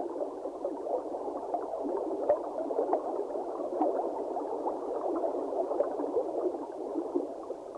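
Steady underwater bubbling and gurgling, a dense stream of small bubbles with no deep or high tones.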